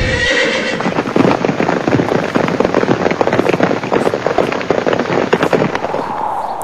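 A horse whinnies briefly, then galloping hoofbeats follow for several seconds, easing off near the end.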